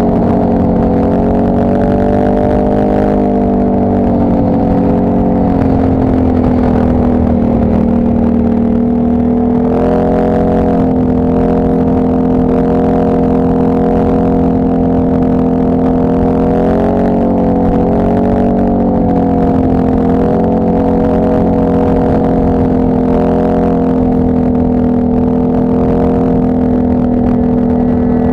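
Engine of the camera-carrying trail vehicle running loud and steady at cruising speed, its pitch dipping and rising briefly with throttle changes a little past the middle.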